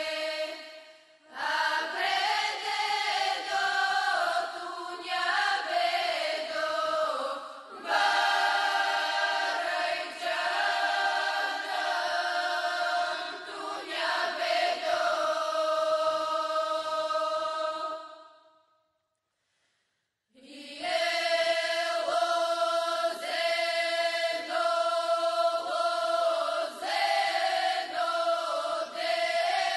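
A group of young women singing a Bulgarian folk ritual song together in long held notes, phrase after phrase. The singing fades out about two-thirds of the way through, stops for about two seconds, then starts again.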